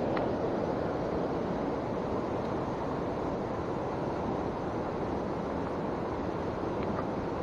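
Steady, even rushing of water, the sound of a hill stream's flow or rain, unchanging throughout.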